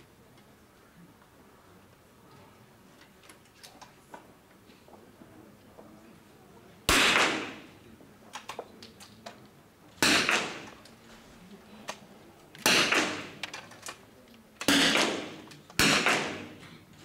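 Five .22 rimfire smallbore target rifle shots fired at irregular intervals from several rifles along the firing line, each a sharp crack with a short echo in the indoor hall. The first comes about seven seconds in, after quiet.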